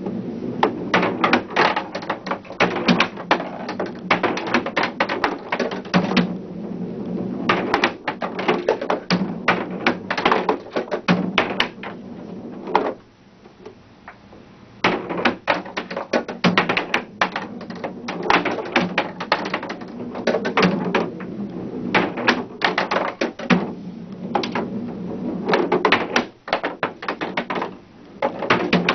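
Skee-ball balls rolled in quick succession up an electronic skee-ball table, knocking and clattering off the ramp, the target rings and the ball return in a rapid run of clacks, with a short lull about halfway through.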